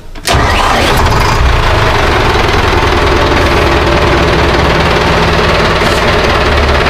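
A fishing boat's inboard marine engine, started on two batteries wired in series after about two months unused, fires up almost at once about a fifth of a second in and then runs steadily.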